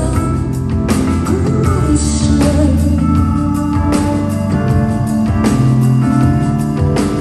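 Live band music played in a concert hall: held keyboard and bass notes under scattered drum hits, loud and continuous.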